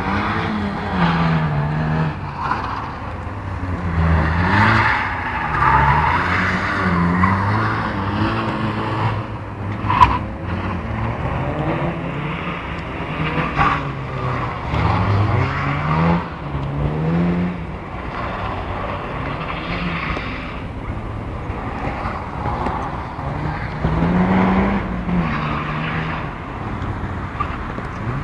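Opel Astra estate's engine revving up and dropping back again and again in short bursts of throttle, with tyres squealing in the turns. A single sharp knock comes about ten seconds in.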